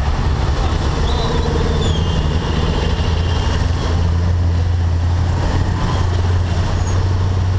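Dense, slow-moving road traffic heard from a small scooter in the jam: a steady low engine hum under a constant mix of surrounding car, motorcycle and truck engines.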